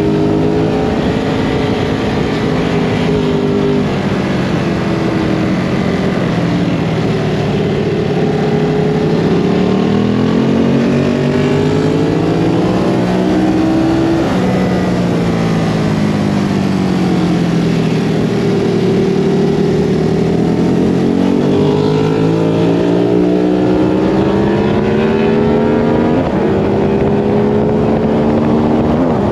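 Ducati Hypermotard 939's L-twin engine being ridden hard, its note climbing and falling several times as the bike accelerates and slows, with a few quick pitch steps like gear changes, over a steady rush of wind noise.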